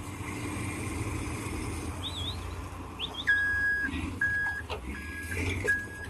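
Heavy diesel machinery runs with a steady low hum. About halfway through, a reversing alarm starts up, four high beeps each a little over half a second apart.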